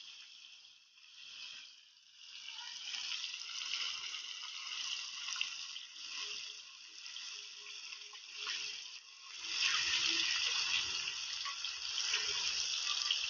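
Breaded cream dory fish fillets deep-frying in hot oil in a wok: a steady sizzle full of small crackling pops. It gets louder about nine and a half seconds in, with a low rumble underneath.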